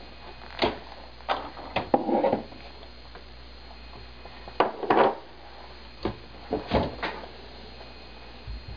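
Irregular hard plastic knocks and clunks as the Froth Au Lait automatic milk frother's jug is handled and lifted off its base, with its whisking motor stopped.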